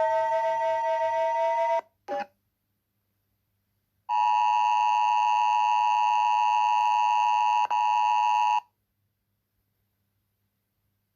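Emergency alert alarm tones: a held electronic tone cuts off about two seconds in, followed by a short blip, then after a pause a steady electronic alert tone sounds for about four and a half seconds, with a brief dropout near its end, and stops suddenly.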